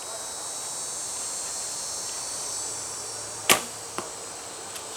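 A traditional bow is shot about three and a half seconds in: a sharp snap of the string, then half a second later a fainter knock of the arrow striking the foam 3D target. Insects buzz steadily throughout.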